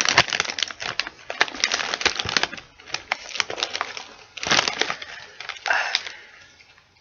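Chip bag crinkled and crumpled by hand: dense crackling in several bursts, dying away near the end.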